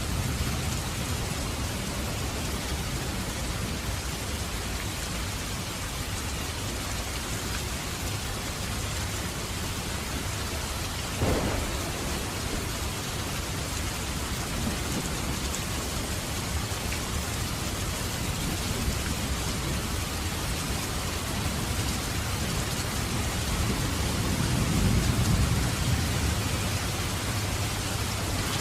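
Heavy rain falling steadily, a dense even hiss of drops on surfaces. A single sharp knock comes about eleven seconds in, and a low rumble swells and fades near the end.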